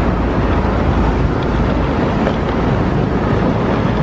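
Steady city street noise: a constant traffic rumble with no distinct events.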